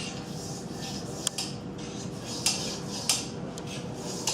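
Burr stone rubbing in strokes along the edge of a speed-skate blade clamped in a sharpening jig, deburring the freshly sharpened edge. A few sharp clicks of stone on metal come between the strokes.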